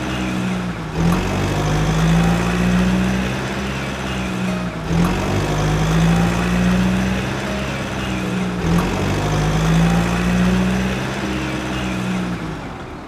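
Engine sound of an idling truck, a steady low drone that rises and falls slightly. It breaks off and starts again about every four seconds, like a short loop played over and over.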